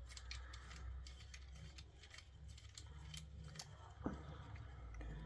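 Faint small clicks and scrapes of a knife-sharpening system's handle and rod tube being handled and tightened back together, with one sharper click about four seconds in.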